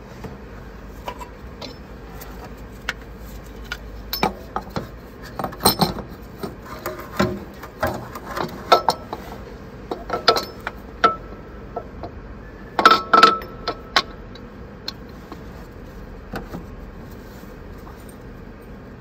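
Hand tools and metal parts clinking and knocking while the belt tensioner and fan drive of a DAF CF85 truck engine are worked on: irregular sharp metallic clinks and taps, a few with a short ringing tone, loudest in a cluster about two thirds of the way through.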